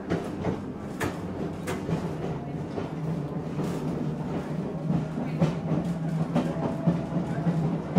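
Electric railcar running along the track, heard from inside the motorman's cab: a steady low hum with uneven clicks and knocks from the wheels going over rail joints.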